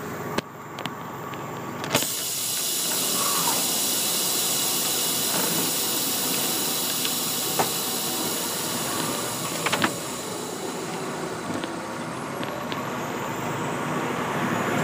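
Cab noise of a Freightliner day-cab truck heard from inside: a steady hiss that sets in with a click about two seconds in, with a few light knocks later.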